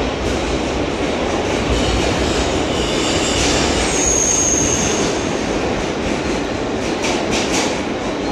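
An R160 subway car running, heard from inside the car: a steady rumble of wheels on rail, with a high, thin squeal about four seconds in that lasts about a second, and a few sharp clacks near the end.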